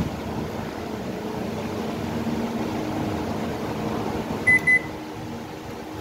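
Panasonic Inverter microwave oven running with a steady hum. About four and a half seconds in it gives two short beeps and the hum drops as it shuts itself off with its recurring H98 error.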